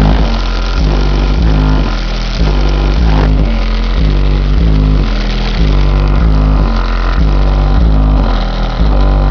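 Hip-hop music played very loud through an 18-inch JBL subwoofer inside a car's cabin, the heavy bass dominating in a steady repeating pattern.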